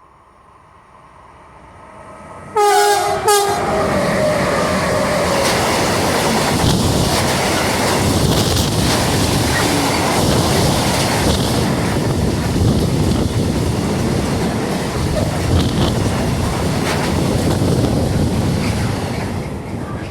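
A train approaches and sounds its horn in two short blasts, then passes close by with a loud, steady rumble of wheels on rails that begins to fade near the end.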